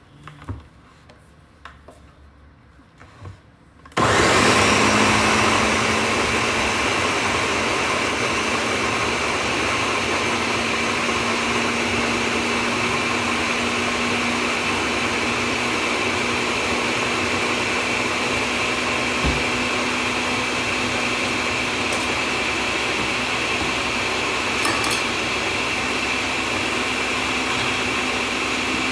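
An electric kitchen blender switches on about four seconds in and runs steadily at one speed, after a few faint clicks and knocks.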